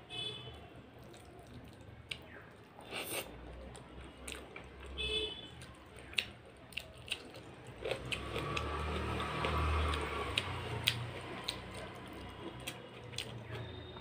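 Close-up eating sounds: chewing a mouthful, and a hand mixing rice and dal on a metal plate, wet squishing with scattered small clicks. The squishing and chewing are densest about eight to eleven seconds in.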